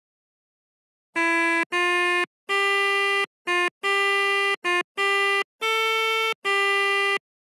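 Pianika (melodica) notes from a phone simulator app, played one at a time as a simple melody. After a second of silence come about nine separate held notes, each stopping cleanly before the next, climbing mostly upward in pitch.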